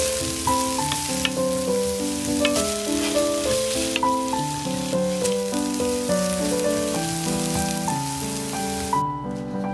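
Food sizzling in hot oil in a frying pan, a steady hiss that cuts off suddenly about nine seconds in. Background music plays throughout.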